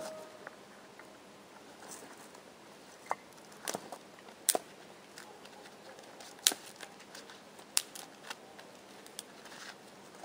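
About seven sharp clicks and snaps at irregular intervals over a faint hiss, the loudest about halfway through.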